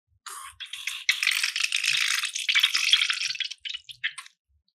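Slime and air sputtering and crackling as a rubber balloon toy is squeezed, forcing slime out through its spout into the dish. The wet crackle runs about four seconds and breaks into short spurts before it stops.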